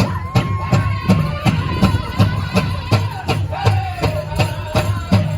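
Powwow drum group playing a Men's Fancy dance song: a big drum struck in a steady fast beat, about three strokes a second, with high held singing voices over it.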